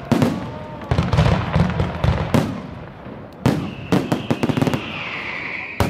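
Fireworks display: a string of sharp bangs from bursting shells, each trailing an echo, then a quick run of rapid crackling about three and a half seconds in. A steady high whistle sounds through the last two seconds.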